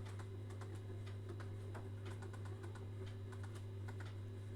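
Scattered light clicks at an irregular pace, a few each second, over a steady low electrical hum.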